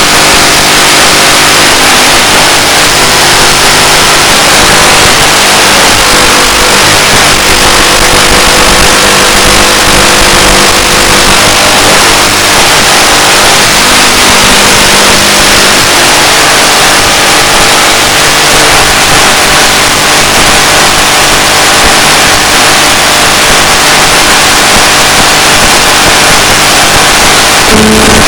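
Loud steady hiss with several faint steady hums underneath, some fading in and out.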